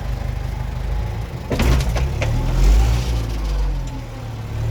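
Case 4210 tractor's diesel engine running steadily, with a few sharp clicks about one and a half to two seconds in and a brief swell in the engine sound near the middle.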